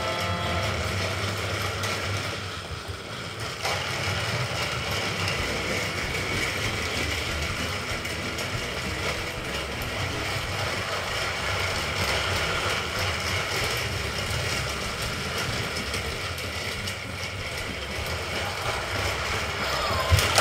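Battery-powered motorised toy engines running on plastic track: a steady whir of small electric motors with the rattle of wheels and wagons over the track joints. There is a short knock near the end.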